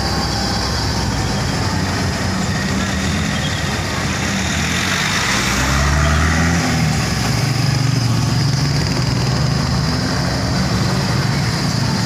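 Tour jeep's engine running as the jeep drives along, heard from inside its open cab with wind and road noise; the engine note shifts about halfway through.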